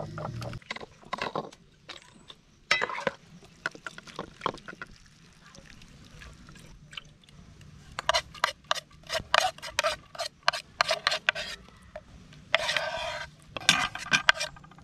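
Chopped vegetables being scraped off a wooden chopping board into a bowl: a run of quick clicks and scrapes, thickest in the second half, with a longer scrape a couple of seconds before the end.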